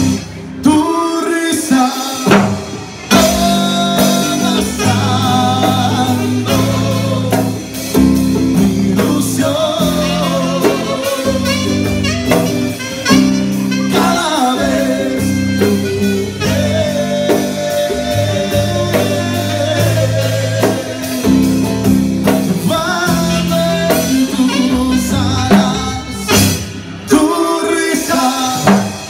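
Live band playing an instrumental passage of a Latin song: a saxophone carries the melody over an electric bass line and hand percussion.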